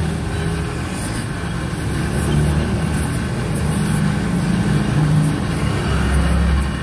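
Flexible-shaft rotary buffer running against the rubber of a tractor tire, a steady low motor hum that swells and eases as the wheel is pressed on, roughening the surface for a patch.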